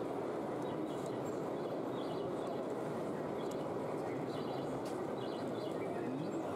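Steady background din of a room around a model railway layout, with faint high chirps about once a second.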